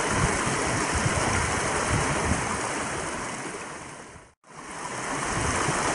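Steady rushing of flowing water, with irregular low rumbles of wind on the microphone. The sound fades out and straight back in about four and a half seconds in.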